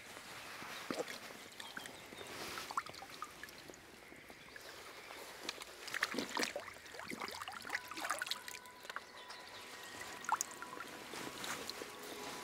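Shallow water splashing and trickling as a carp is released from a floating unhooking mat, the splashes busiest about halfway through. Near the end water runs and drips off a landing net lifted from the water.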